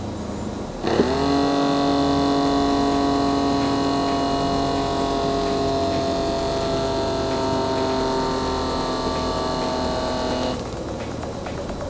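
Small electric air pump of an Omron Platinum X7 upper-arm blood pressure monitor inflating the cuff for a measurement. It makes a steady whine that starts suddenly about a second in and cuts off near the end.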